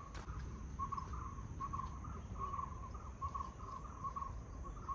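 An animal chirping in short pulses, several a second, over a low steady rumble.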